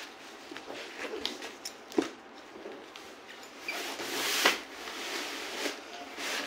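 A large cardboard box being handled and tipped: scattered rustles and knocks, a sharp knock about two seconds in, and louder scraping of cardboard about four seconds in.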